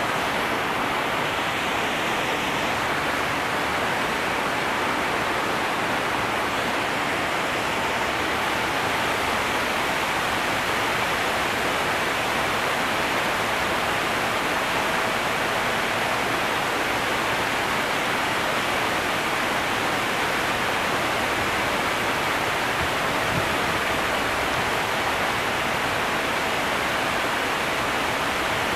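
Steady rushing of water at an Erie Canal lock, an even hiss with no break. A faint thin steady tone comes and goes over it in the second half.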